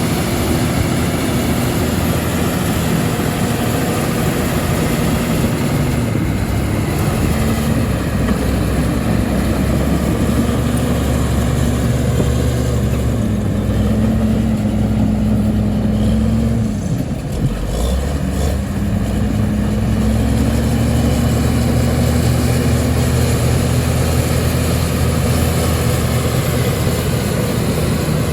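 Heavy earthmoving machine's diesel engine running steadily under work. Its pitch and level drop briefly a little past the middle, then pick back up and hold.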